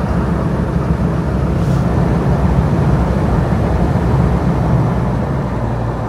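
Toyota Hilux driving, heard from inside the cab: a steady low engine drone with road noise.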